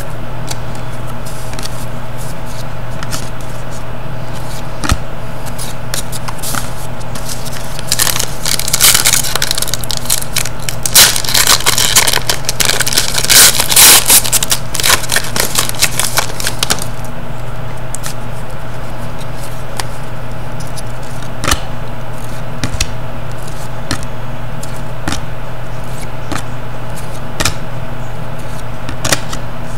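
Foil wrapper of a hockey trading-card pack crinkling and tearing open, densest and loudest from about 8 to 17 seconds in. Around it, cards click and slide against one another as they are handled, over a steady low hum.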